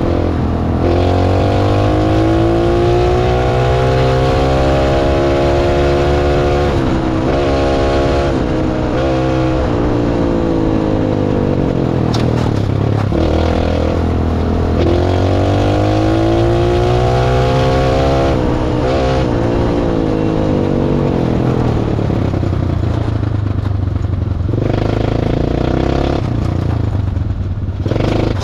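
Small engine of a homemade airplane-bodied car, heard from the driver's seat while driving. The engine note climbs as it accelerates, drops about seven seconds in, then climbs again and falls back around eighteen seconds in. After that it runs lower and steadier.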